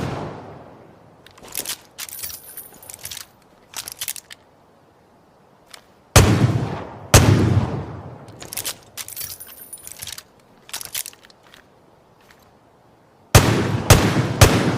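Smith & Wesson Model 29 .44 Magnum revolver firing: two loud shots about a second apart, then a quick string of four or five near the end, each with a long echoing decay. Between the shots come quieter metallic clicks and clinks.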